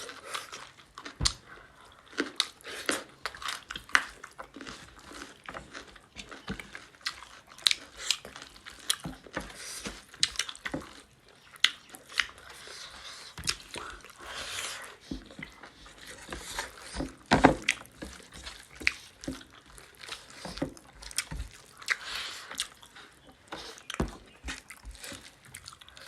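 A person chewing pork and rice close to the microphone: irregular wet smacks and sharp mouth clicks, with a louder crunchy bite about seventeen seconds in.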